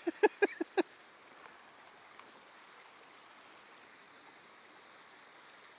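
Small mountain creek flowing over a shallow riffle, a steady, even rush of water. Near the start a person's voice cuts in for a few short syllables, under a second.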